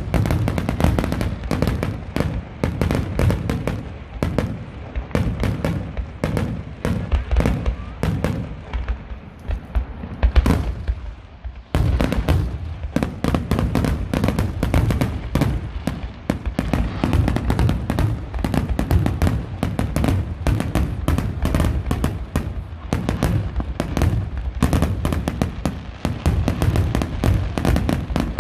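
Fireworks display: a dense, continuous barrage of bangs and crackling. There is a brief lull about twelve seconds in before it picks up again.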